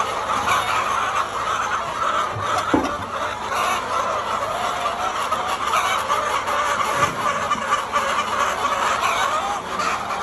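A flock of laying hens clucking together, many birds at once in a dense, steady chorus.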